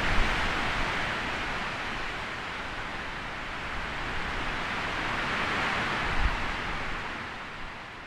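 Storm wind rushing through woodland treetops, surging and easing in long gusts, with a sound like a distant ocean; it dies down near the end.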